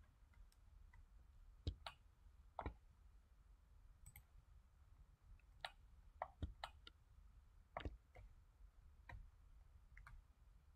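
Faint, irregular computer mouse clicks, about a dozen of them, over near-silent room tone.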